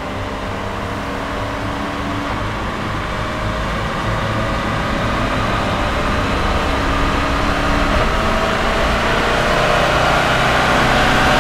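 Jaguar F-Type SVR's supercharged V8 and exhaust running steadily at speed, the note slowly growing louder and brighter.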